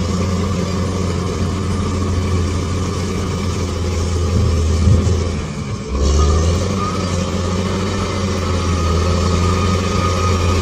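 Bulldozer's diesel engine running steadily under load. The sound dips briefly about halfway through, then picks up again.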